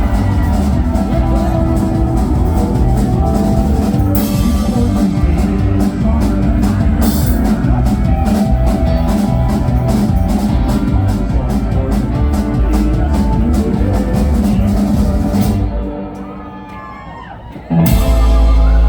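Live band playing a loud country-rock song with a drum kit and guitars. About sixteen seconds in the band drops out, leaving a few gliding notes, then comes back in hard just before the end.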